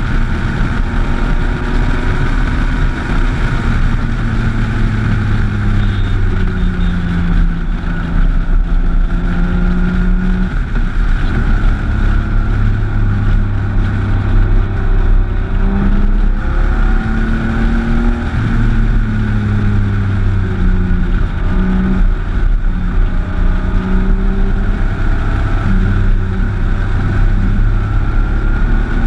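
Motorcycle engine running under way at road speed. Its pitch climbs and then drops back several times with throttle and gear changes, over steady wind rush on the microphone.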